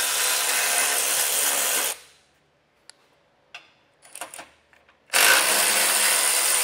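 A cordless electric ratchet with a 16 mm socket runs with a steady whine for about two seconds, backing out a frame-guard bolt. It stops, a few light clinks follow, and it starts again about five seconds in.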